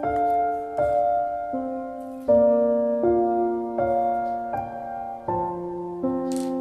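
Background music: slow, gentle piano, a new note or chord struck about every three-quarters of a second and left to fade.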